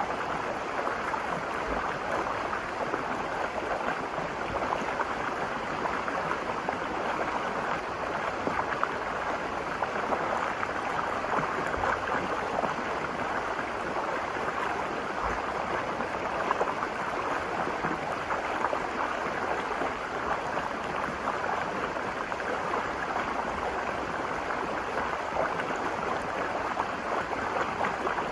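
Virgin River's water rushing and burbling over rocks: a steady, unbroken wash of flowing water.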